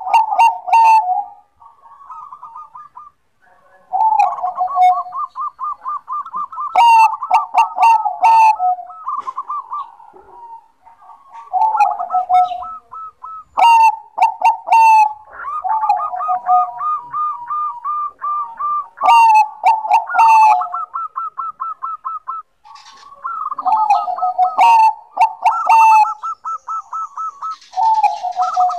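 Zebra dove (perkutut bangkok) singing: phrases of quick, stuttering coos, each lasting a couple of seconds and repeated every few seconds. Sharp high chirps break in several times.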